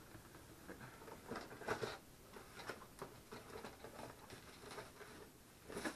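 Faint rustling and crinkling of cardboard and plastic wrap as a boxed air filter is unpacked, with a sharper crackle just before the end.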